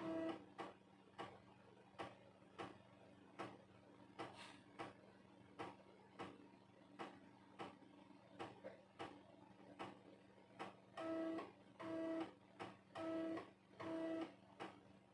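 3.5-inch floppy disk drive writing a Windows 98 startup disk, its head clicking faintly about twice a second. From about eleven seconds in, a short buzzing tone sounds about once a second.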